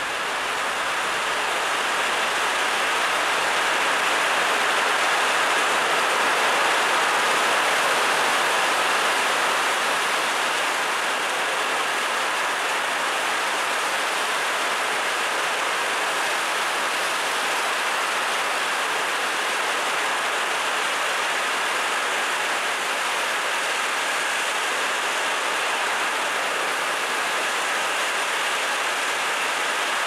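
Heavy rain falling steadily, a dense even hiss, with runoff pouring off a metal roof edge; it swells over the first few seconds and then holds level.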